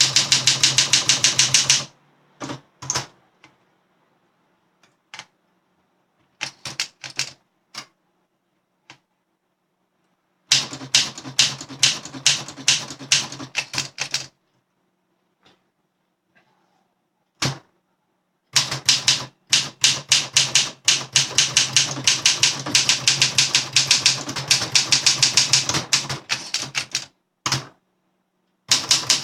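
Olympia SM7 manual typewriter being typed on: fast runs of key strikes, several a second, broken by short pauses with a few single strokes.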